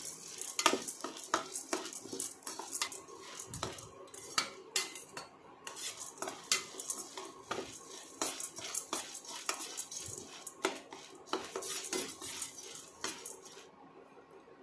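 Slotted steel spoon stirring pottukadalai (roasted split chickpeas) as it dry-roasts in a stainless-steel kadai: rapid, irregular scraping and clinking of metal on metal. The stirring stops about a second before the end.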